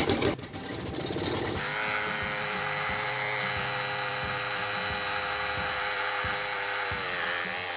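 Small petrol engine of an engine-driven power sprayer starting up, then running steadily from about a second and a half in, its pitch dipping briefly near the end.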